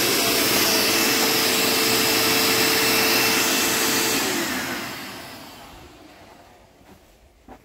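Dirt Devil Feather Lite bagged upright vacuum running steadily, then shutting off about four seconds in, its motor winding down in pitch and fading away over the next few seconds.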